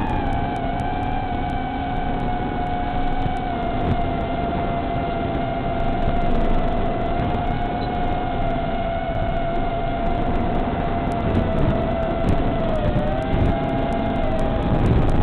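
Brushless motors of a 3-inch FPV quadcopter (EMAX RS1606 4000Kv) whining in flight, holding a nearly steady pitch with a slight dip and rise near the end.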